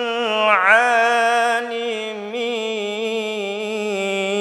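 A man's voice chanting the Quran in melodic tajwid style, drawing out one long vowel. About half a second in the pitch swoops down and back up in an ornament, and the held note wavers gently after that.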